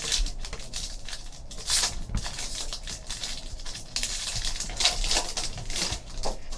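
Trading cards and foil pack wrappers being handled: irregular crinkling and rustling with quick clicks and slides of cards against each other.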